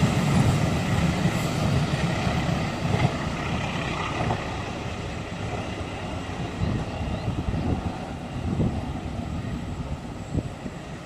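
A diesel train passing and moving away, its low rumble fading steadily, with a few short knocks in the second half.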